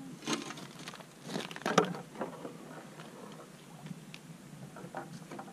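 Scattered crunches and knocks of gear being handled at a hole in lake ice, loudest a little under two seconds in.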